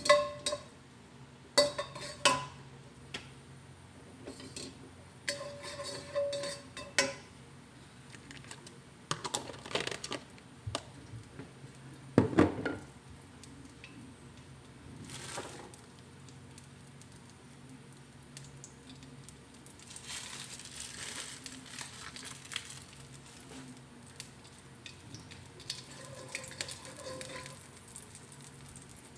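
Spatula knocking and scraping against a hammered wok as a lump of fat is pushed around in it: scattered sharp clinks with a short ring, one louder knock about twelve seconds in, a soft hiss around twenty seconds in, and a few light clinks near the end, over a steady low hum.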